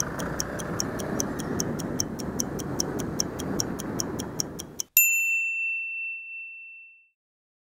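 Stopwatch-style clock ticking, about four ticks a second, laid over city traffic noise. About five seconds in, both cut off at once and a single loud bell-like ding rings out, fading over about two seconds, as the timer stops.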